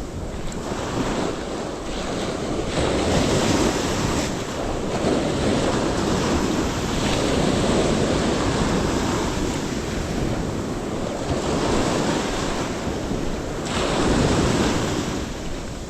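Ocean surf breaking and washing on a beach, rising and falling in several swells, with wind buffeting the microphone.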